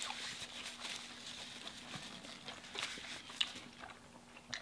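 Quiet eating sounds: a cheeseburger being chewed, with a few small wet clicks and smacks scattered through, over a faint steady hum.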